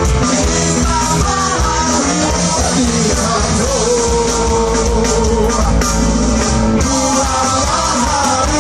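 Live ska band playing loudly: singing over electric guitars, drums and a horn section with saxophone.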